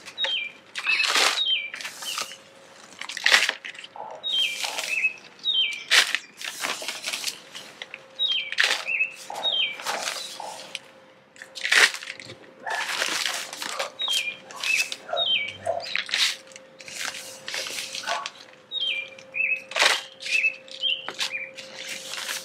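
Handfuls of potting soil scooped from a bag and dropped into plastic nursery pots: repeated short rustles and scrapes of soil, bag and pots. Between them a songbird repeatedly sings short phrases of quick falling notes, over a faint steady hum.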